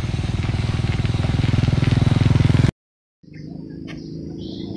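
Small motorbike engine running and growing louder as it comes closer, cut off abruptly a little before halfway. After a brief silence, a quieter outdoor background with a low steady hum follows.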